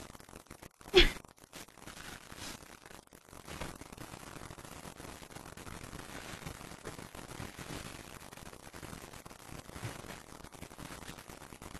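Faint steady hiss, with one short sharp sound about a second in.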